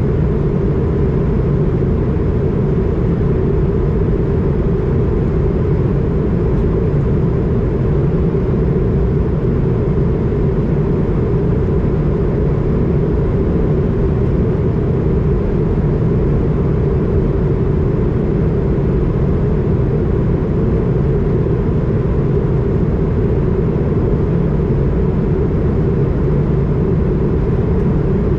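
Steady cabin noise inside an Airbus A220 in descent: the rush of air over the fuselage and the hum of its Pratt & Whitney PW1500G geared turbofan engines, deepest in the low end, with a faint steady high tone.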